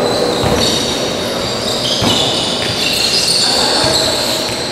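Futsal game play on a hard indoor court: the ball is kicked and thuds a couple of times, and many short high-pitched squeaks of sneakers on the floor are heard over the echo of the hall.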